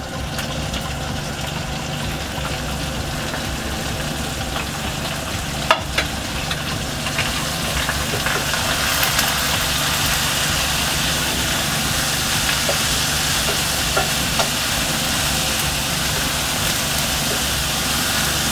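Shredded cabbage and smoked fish sizzling in hot oil in a pan, over a steady low hum. A wooden spoon stirs them, with a few sharp clicks against the pan. The sizzle grows a little louder about 8 seconds in.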